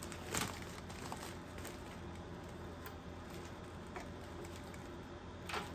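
Faint handling noise: a few light rustles and clicks as hands move the wiring and plastic wrap on a headlight assembly, the clearest near the end, over a low steady hum.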